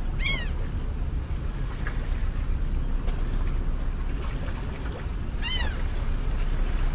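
Two short, high animal cries about five seconds apart, each sliding up and back down in pitch, over a steady low rumble.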